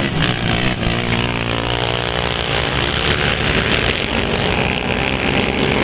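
Several racing quad bike (ATV) engines running hard together as the pack accelerates through a corner, their overlapping engine notes rising and falling in pitch.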